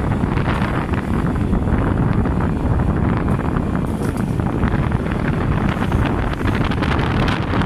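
Typhoon wind buffeting the microphone: a loud, steady, gusty rumble.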